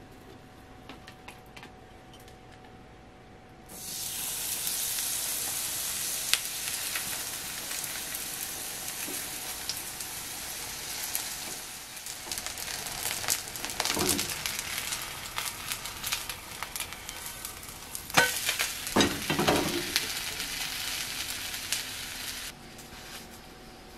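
Vegetable batter hitting hot oil in an iron frying pan, starting to sizzle suddenly about four seconds in and sizzling steadily as it fries into a flat pancake. A few sharp clicks and scrapes from the pan being worked come through the sizzle in the second half, and the sizzle drops away shortly before the end.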